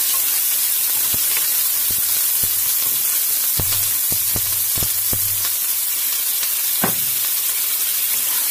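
Sliced onions sizzling steadily in hot oil in a pan as they brown. They are stirred with a spatula that knocks and scrapes against the pan many times, in a quick run of clicks around the middle and one louder knock near the end.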